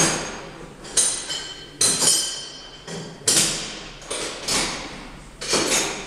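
Metal clanks and knocks, about nine at irregular spacing, each ringing briefly: steel tools or clamps striking metal in a machine shop.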